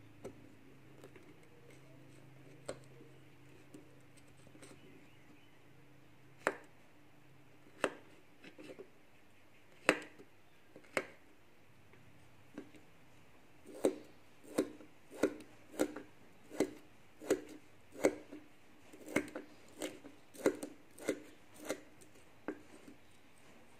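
Miniature metal cleaver chopping vegetables on a small wooden board: a few separate chops at first, then from about halfway a steady run of chops at roughly one and a half a second.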